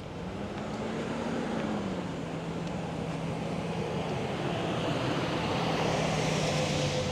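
A motor vehicle's engine running as it passes, its hum steady apart from a slight rise and fall in pitch early on, with road noise swelling toward the end.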